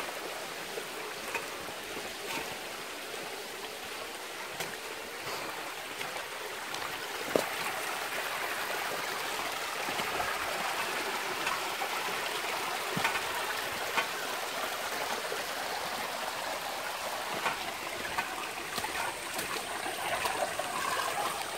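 Muddy floodwater running steadily over loose stones and mud in a small stream channel, with a few sharp clicks and knocks scattered through it, the strongest about seven seconds in.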